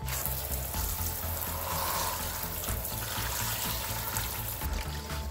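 Spray of water hitting the plastic housing of a Makita HR2230 rotary hammer in a plastic tub, rinsing it clean: a steady hiss that starts suddenly and stops near the end. Background music plays underneath.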